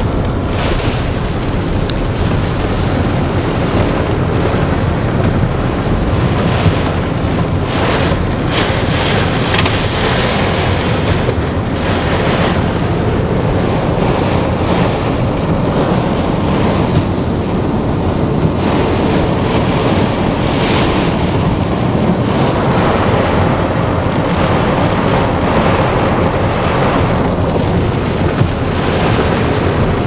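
Tornado-driven high winds and heavy rain lashing a car, heard from inside: a loud, steady rushing noise that surges now and then.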